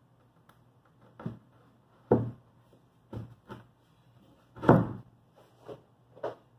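Irregular wooden knocks and thumps, about seven, as a plywood bulkhead panel is handled and bumped into place against the plywood hull; the loudest comes about two-thirds through. A faint steady low hum runs underneath.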